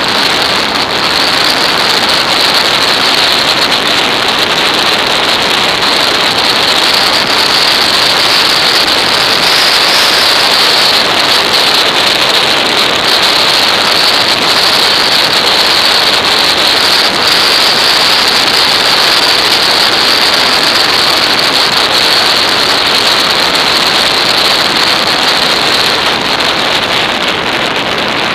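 Loud, steady rush of wind and road noise on a motorcycle rider's action camera at speed, with no distinct engine note standing out.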